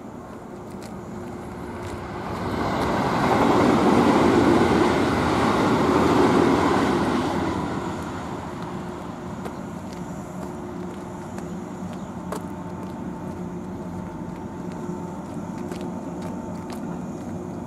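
Steady hum with a few held tones, taken for the motor-generator (MG) of a parked JR West 103 series electric train running. From about two seconds in, a louder rushing noise of a passing vehicle swells up, covers the hum and fades away by about eight seconds in.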